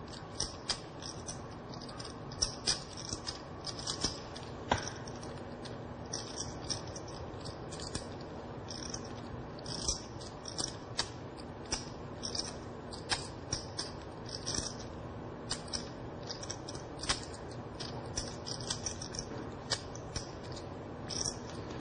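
Clay poker chips clicking as a player handles and shuffles a stack, a run of light, irregular clicks several times a second.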